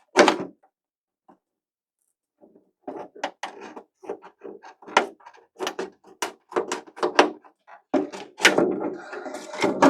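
Scissors cutting through a hard, clear polycarbonate RC car body: a run of short, sharp snips and crackles as the stiff plastic is cut and flexed. There is one loud snap at the start, a short pause, and then the snips follow each other unevenly from about three seconds in.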